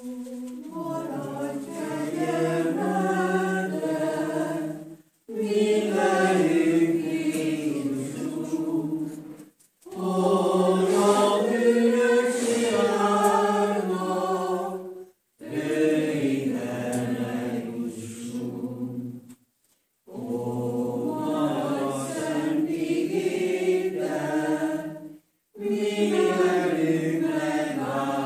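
A church congregation singing a hymn together, phrase by phrase. Each sung line lasts about five seconds, with a short breath-pause between lines.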